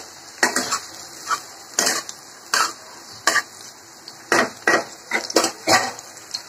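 A spatula scraping and stirring in a kadhai of onions, peanuts and green chillies frying in oil: about a dozen short scrapes at an uneven pace, over a faint steady sizzle.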